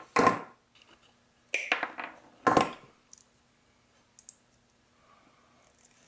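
Metal hand tools clinking against each other and the wooden workbench: three loud short clinks in the first three seconds, then two faint ticks about four seconds in, over a faint steady hum.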